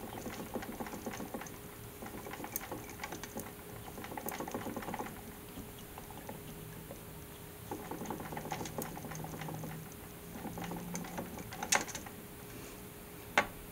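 Bicycle crank rattling: a patter of quick, irregular light clicks, with a couple of sharper clicks near the end.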